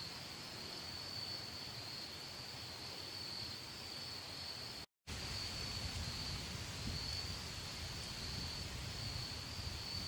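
Insects trilling outdoors: one steady, continuous high-pitched note over a faint low rumble. It breaks off into a brief silence about five seconds in, then carries on.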